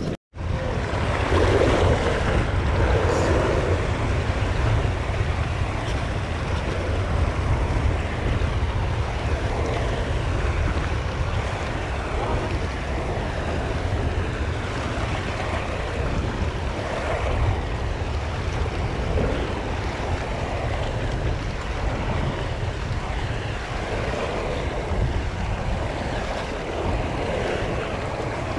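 Ocean swell surging and washing against a sandstone rock ledge, with steady wind rumble on the microphone; the wash swells up a few times, about two seconds in, around the middle and near the end.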